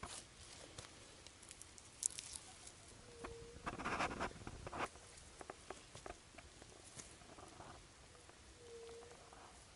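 Faint rustling of carrot foliage and crumbling soil as carrots are pulled up by hand, with scattered small clicks and one louder rustle about four seconds in.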